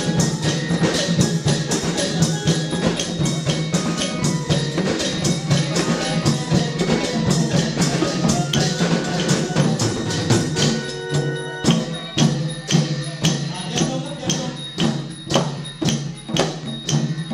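Thai long drums (klong yao) played as an ensemble in a steady dance rhythm, with cymbals ringing in time. In the second half the strokes thin out into clear strong beats a little under a second apart.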